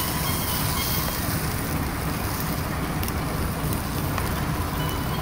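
Beef burger patties sizzling on a charcoal grill, fat dripping onto the hot coals, with a few faint crackles over a steady low rumble.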